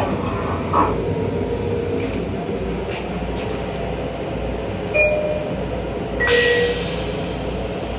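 Long Island Rail Road M7 electric multiple-unit train running, a steady low rumble, with a brief hiss about six seconds in.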